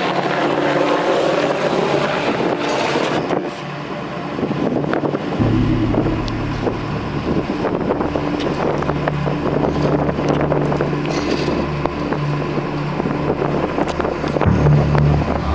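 A vehicle running steadily while in motion, with wind buffeting the microphone. About five seconds in, a deep low hum sets in and continues.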